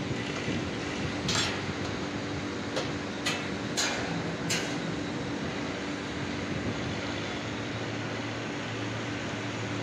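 Steady hum of industrial machinery, with about five sharp knocks in the first half.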